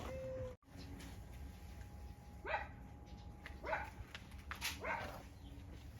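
A dog barking three times, about a second apart, starting about two and a half seconds in.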